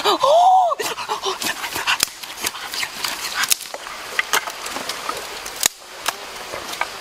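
A short whining vocal cry that rises and then falls in pitch, followed by a run of scattered sharp clicks and ticks.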